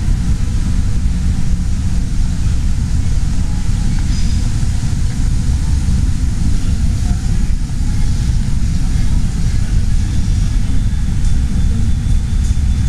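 Steady low rumble of indoor background noise in a large, nearly empty airport hall, with no distinct events standing out.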